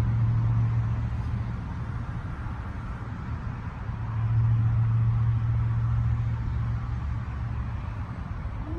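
Steady low hum of an engine, swelling again about four seconds in.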